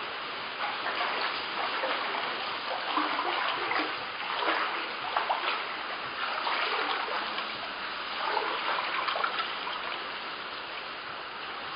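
Floodwater splashing and sloshing in a flooded house, with irregular bursts of splashing over a steady watery rush.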